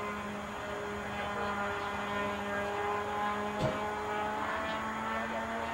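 Propeller motor of a homemade radio-controlled model airplane droning steadily overhead in flight, its pitch wavering slightly, with one brief knock about two-thirds of the way through.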